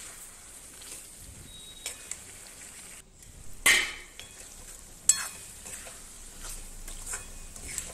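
A metal spatula stirring and scraping jackfruit curry (kathal sabzi) around a metal kadhai while the masala gravy sizzles steadily. Scattered clinks of the spatula against the pan, with the loudest scrape a little before halfway and a sharp clink about five seconds in.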